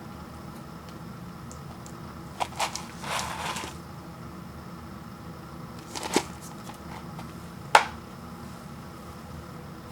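Paper and plastic food packaging being handled: a brief rustle and several light clicks and taps, the sharpest near the end, over a steady background hiss.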